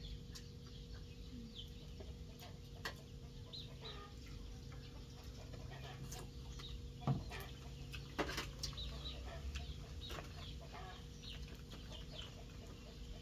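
Chickens clucking with small birds chirping around them, faint and scattered, with two louder short sounds about seven and eight seconds in.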